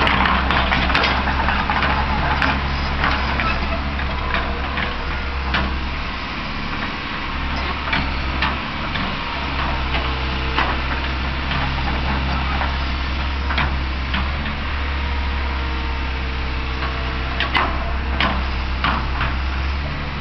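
Fiat-Hitachi EX135 excavator's diesel engine running steadily under working load while it spreads topsoil, with scattered sharp clanks and knocks from the working machine every few seconds.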